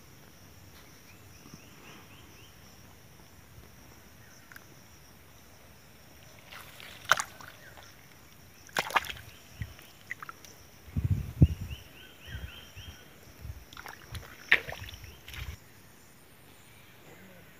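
A hand splashing and sloshing in a shallow muddy puddle while grabbing at a crab. Irregular splashes and knocks start about six seconds in and are busiest from about eleven to fifteen seconds; the first part holds only a steady high-pitched background hum.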